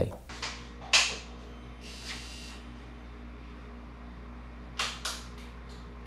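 A few sharp clicks and a brief rustle of handling, then near the end a faint, regular ticking about three times a second, typical of a motorcycle turn-signal flasher relay blinking, all over a steady low hum.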